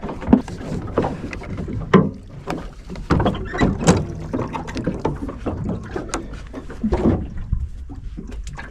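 Irregular knocks and clunks on a small fishing boat as a freshly caught fish is handled and bled, over a steady low rumble of wind and water.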